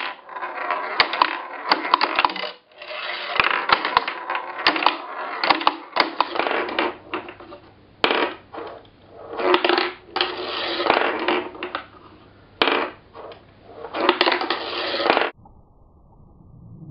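Steel ball rolling and rattling along the twin wire-rail metal track and plywood of a homemade mechanical pinball table, in several runs separated by short pauses, with sharp clicks where it knocks against the rails and wood. The rolling stops about 15 seconds in.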